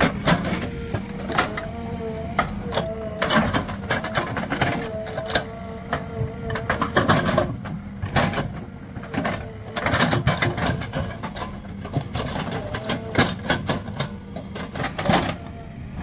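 JCB 3DX backhoe loader's diesel engine running under working load, with a steady whine that sags in pitch now and then and frequent sharp clanks.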